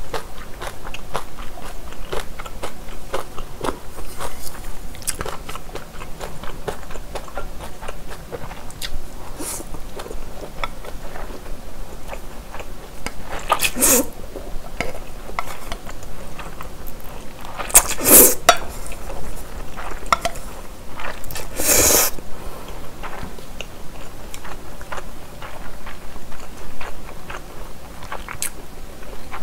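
Close-miked eating sounds: wet chewing and mouth clicks of glass noodles (japchae), with a few louder noodle slurps in the middle of the stretch.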